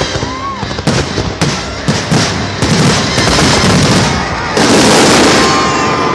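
Fireworks show: a run of sharp bangs starting about a second in, thickening into a dense barrage and then a loud, continuous blast of noise from about four and a half seconds in.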